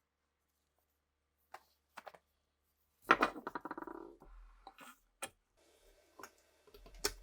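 A few light clicks, then a sudden clatter about three seconds in that trails off in a fast rattle for about a second, followed by scattered clicks and a faint scrape: small metal pistol parts being handled during disassembly.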